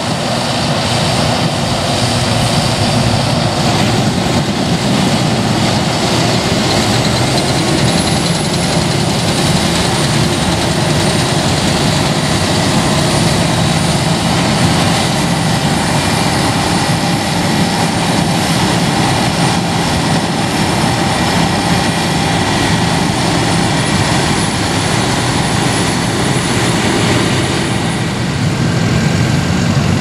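Case IH Puma tractor's diesel engine running steadily as it drives past towing a header trailer, with a faint high whine that rises in pitch about eight seconds in.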